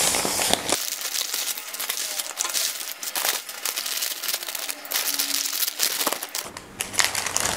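Food delivery packaging being unwrapped by hand: continuous crinkling and rustling of wrappers and bags, with many sharp crackles.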